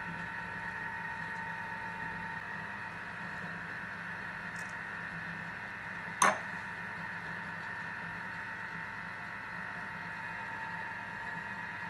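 A steady hum of several held tones, with one sharp clink about six seconds in, the loudest sound in the stretch.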